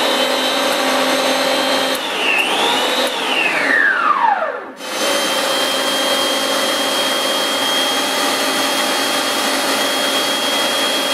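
Snow Joe 18-inch hybrid single-stage snowblower's 13.5-amp electric motor and rubber auger paddles running on corded power with no load, a steady high whine over a rushing hum. About three seconds in it winds down, falling in pitch. It starts again about five seconds in and runs steadily.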